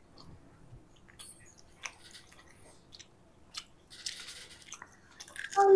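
People chewing fried chicken pakora: faint, scattered mouth sounds and small clicks of chewing, with a brief rustly noise about four seconds in. A child's short voiced sound comes near the end.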